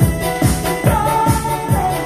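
A Korean trot song played on a backing track with a steady beat, a janggu drum beaten along with it and a woman singing over it, her voice most prominent in the second half.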